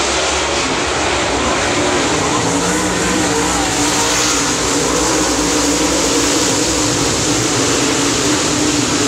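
A pack of dirt late model race cars' V8 engines running hard around a dirt oval, a loud, steady, unbroken engine noise.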